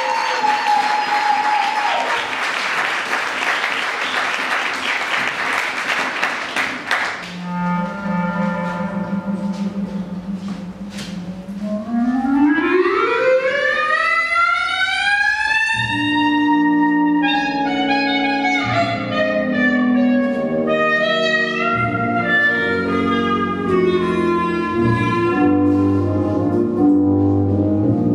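Audience applauding and cheering, fading after about seven seconds. Recorded music then starts: a wind instrument, most like a clarinet, holds a low note, slides up in a long rising glide, and a band with brass comes in.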